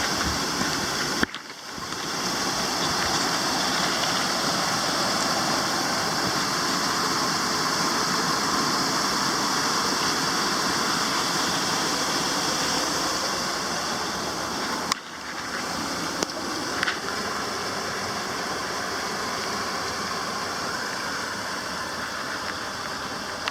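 Steady rush of a waterfall's falling water, a loud even hiss, cutting out briefly twice.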